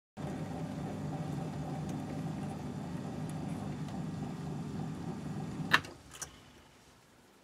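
Myford ML7 lathe running steadily while a parting tool cuts through steel bar stock. About six seconds in come two sharp clicks, and the running sound dies away.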